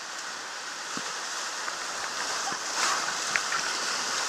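Whitewater rapid rushing around a boat in the middle of it, a steady roar of water with a brief louder splash of waves about three seconds in.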